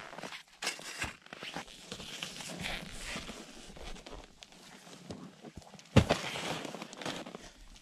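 Footsteps crunching on snow and gear being handled on the ice, with one sharp knock about six seconds in.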